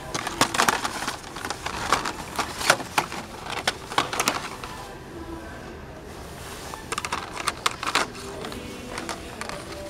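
Two spells of rapid sharp clicks and clatters, like cardboard and plastic toy packaging being handled on a store shelf. The first spell runs through the first half, and a shorter one comes about seven seconds in.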